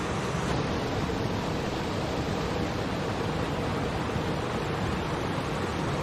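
Small waterfall cascading over rocks into a river: a steady, even rush of splashing water.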